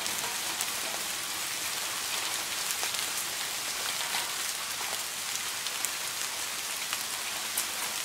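Steady rain, an even hiss with many individual drops ticking through it.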